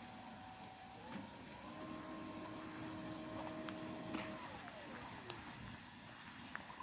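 Electric outboard motor whining: its pitch rises about a second in as it speeds up, holds steady, then glides down and fades out a little after four seconds as it slows.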